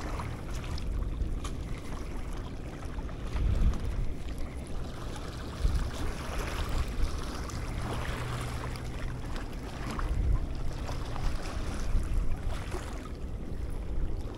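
Wind buffeting the microphone over lapping water, with a low steady hum for a few seconds past the middle.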